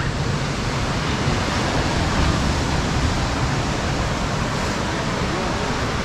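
Steady rush of ocean surf breaking on the shore, with faint voices of people in the background.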